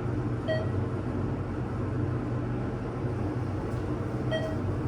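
ThyssenKrupp passenger elevator car running with a steady low hum, with two short electronic beeps about four seconds apart from the car's signal.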